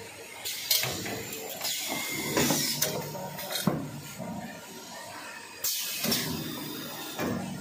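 Toilet paper roll packing machine running with a steady hum, its pneumatic pushers firing in sharp hissing clacks several times, a second or two apart, as the rolls are pushed into groups.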